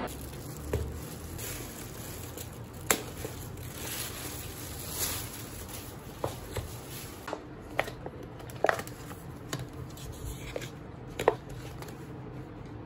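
Takeout bowl with a plastic lid being handled and opened: crinkling with scattered light clicks and taps.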